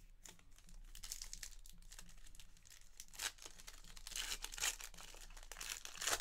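A Panini Revolution Basketball trading-card pack torn open by hand, its wrapper crinkling and ripping. The sound grows louder in the second half, with a few louder rips.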